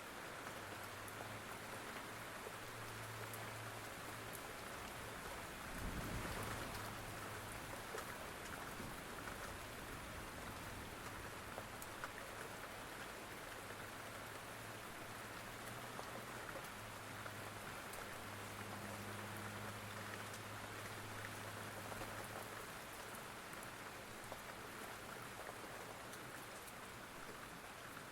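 Steady rain falling, with scattered drop ticks and a faint low hum that comes and goes. A brief low rumble comes about six seconds in.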